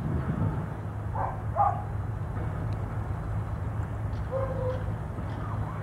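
Airliner jet engines running at taxi power at a distance, a steady low rumble. A few short, higher pitched calls sound over it about a second and a half and about four and a half seconds in.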